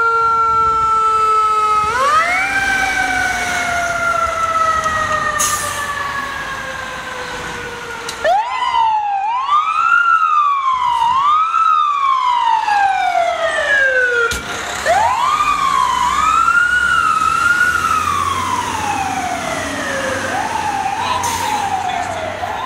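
FDNY fire truck siren wailing as the rigs turn out on a call: a long, slowly falling wail, then from about eight seconds in a quicker cycle of sharp rises and slower falls repeating every second or so.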